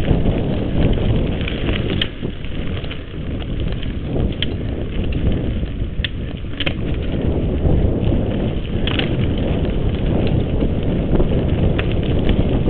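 Mountain bike riding over a dirt singletrack: a steady, loud rumble of tyres and wind on the microphone, with frequent sharp clicks and rattles from the bike over bumps.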